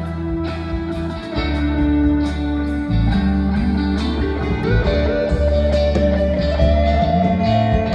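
Rock music with electric guitar over bass and a steady drum beat. In the second half a long held guitar note slowly bends upward.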